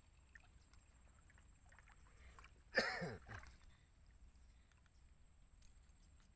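A single short whoosh about three seconds in, falling steeply in pitch: the swish of a fishing rod swung through the air.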